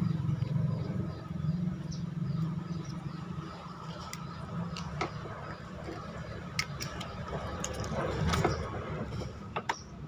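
Scattered light clicks and rubbing as a washing machine's rubber drain valve and its spring are handled and flexed, over a steady low hum.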